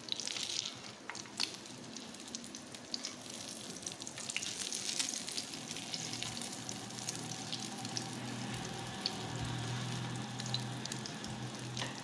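Shami kababs sizzling and crackling as they fry in oil in a pan, with a few taps of a spatula against the pan near the start as they are turned over.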